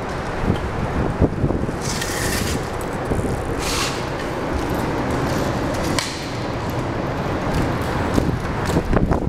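Steady low rumble of traffic on the highway bridge overhead, mixed with wind on the microphone, with a few sharp knocks about a second in and near the end.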